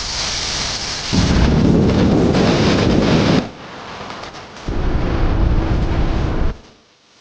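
Packaging being handled close to the microphone during a phone unboxing: two loud rustling, rubbing stretches of about two seconds each, with a deep rumble, then a sudden drop near the end.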